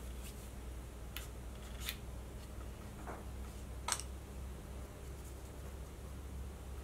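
Quiet handling of a paintbrush and a painted rock: a few short, sharp clicks and light taps, the sharpest about four seconds in, over a steady low hum.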